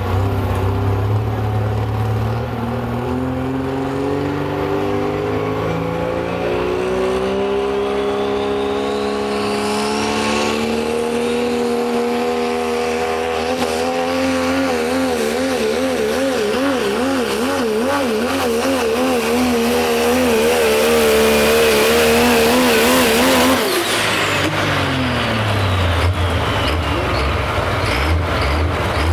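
Diesel pickup truck pulling a weight-transfer sled at full throttle. The engine's revs climb steadily over the first dozen seconds, with a high whine rising alongside, then hold high with a wavering pitch under the load. About 23 seconds in the throttle cuts off suddenly and the engine falls back toward idle.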